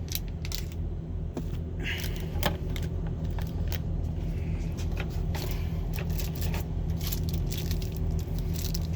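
Dice, damage counters and other small box contents clicking and rattling as they are handled, with a brief rustle about two seconds in, over the steady low rumble of a running truck engine.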